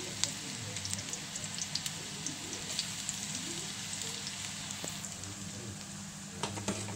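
Ginger strips frying in vegetable oil in a cast iron pot: a steady sizzle with scattered small crackling pops.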